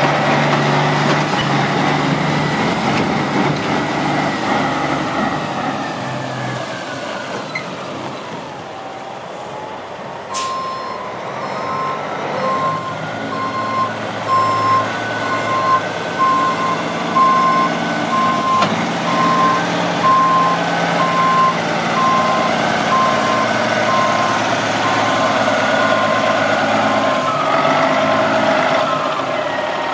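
1997 Ford LTL9000 tri-axle dump truck's diesel engine running as the truck maneuvers. About ten seconds in there is a brief sharp hiss of air, then the truck's reversing alarm beeps steadily while it backs up, stopping near the end.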